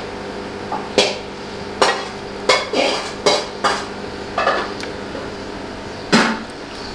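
A metal spoon scrapes and knocks against a wok and clinks on a plate as cooked garlic prawns are served out. There are about eight sharp scrapes and clinks, and the loudest comes near the end.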